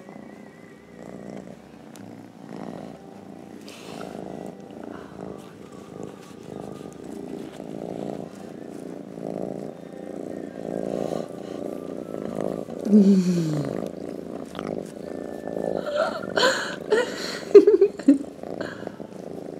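Tabby kitten purring steadily under stroking, a low pulsing rumble. A short falling voice-like sound comes about two-thirds through, and a few louder short sounds near the end.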